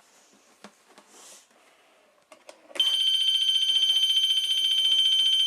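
A few faint clicks, then a Wheelock fire alarm comes on suddenly about three seconds in, sounding one steady, high-pitched continuous tone.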